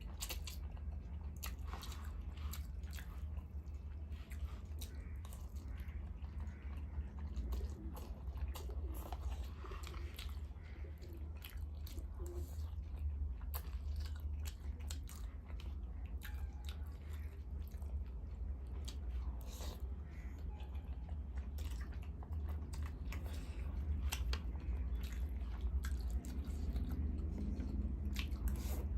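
Close-up eating sounds: a person chewing and biting food, with crunching and many small wet clicks and smacks, over a steady low hum.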